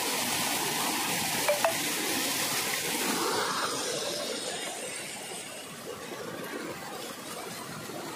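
Stream water rushing over rocks and landslide rubble, a steady noise that fades after about four seconds. Two sharp clicks about a second and a half in.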